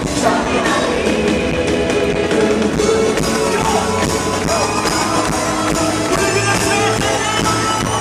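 Live worship band playing a rock-style song with singing over the band, loud and steady.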